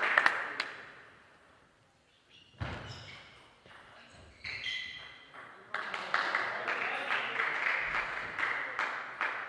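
Table tennis rally: sharp ball hits and a thud of footwork, then scattered hand clapping from a small crowd starting about six seconds in.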